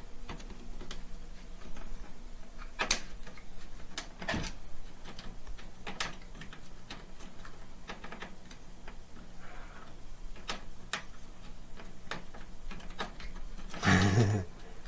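Irregular small clicks and taps of a screwdriver working at an oversized screw that is stuck in a motherboard mounting hole and won't come out, with a louder scuffling sound near the end.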